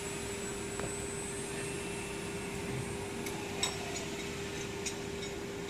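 Water-cooled spindle of a CNC router running with a steady whine while engraving a wooden board, with a few faint ticks in the second half.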